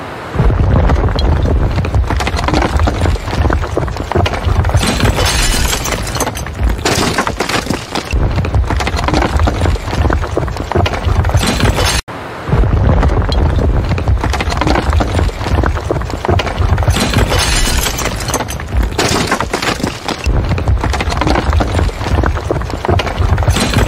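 Building-collapse sound effect: a long, continuous crash of breaking and falling debris over a heavy rumble. It plays twice, with a brief break between.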